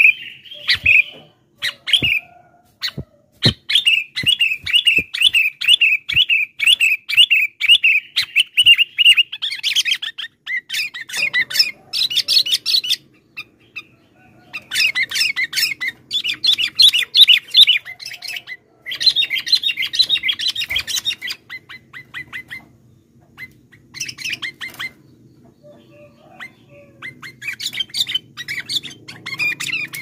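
Sooty-headed bulbul calling: after a few sharp clicks, a run of the same chirp repeated about twice a second, then several bursts of fast, busy chattering song with short pauses between them.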